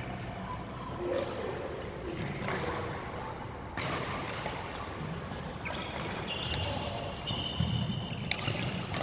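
Badminton rally in a large sports hall: court shoes squeak in short high chirps, thickest in the second half, among footfalls and sharp racket strikes on the shuttlecock, all with a hall echo.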